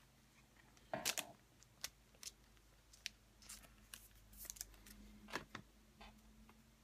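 Faint scattered clicks and light rustling from trading cards and packs being handled, with the loudest clicks about a second in and again a little past five seconds.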